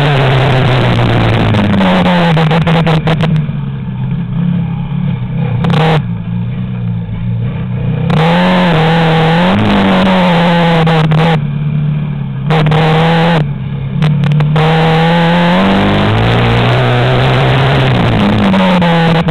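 Yamaha Raptor quad bike engine running on the move, its pitch rising and falling as the throttle is opened and eased off again and again, with quieter throttle-off stretches from about four to eight seconds in and twice more later.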